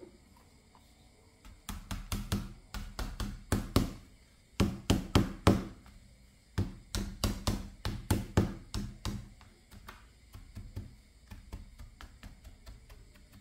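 Small steel hammer repeatedly striking a plastic toothbrush handle lying on a gritty hard floor: a fast run of sharp knocks, about three a second, starting about a second and a half in. The strikes are loudest in the middle and turn to lighter taps near the end.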